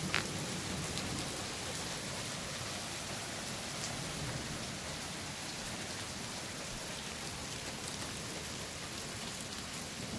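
Rain with a little hail still falling on grass and plants: a steady hiss of many small impacts as the hailstorm slows down. There is a brief click right at the start.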